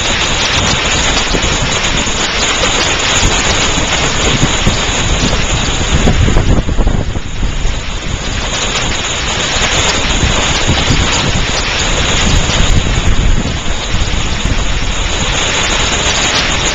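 Hail and heavy rain pelting down in a dense, steady, loud clatter of countless small impacts.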